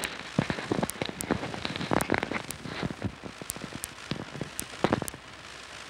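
Steady hiss with irregular crackling and sharp clicks, the surface noise of an old home-movie sound recording, with a few stronger knocks about two and five seconds in.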